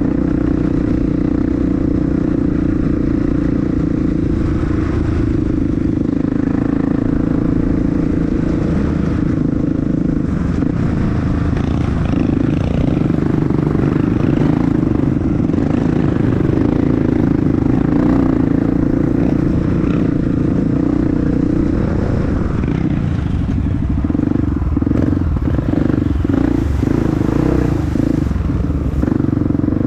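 Honda CRF dirt bike engine running steadily as it is ridden, with clattering from the bike over rough ground. Over the last several seconds the engine note breaks up into quick rises and dips as the throttle is worked.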